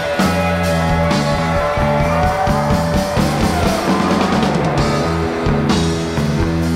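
Rock music with guitar, played as a soundtrack.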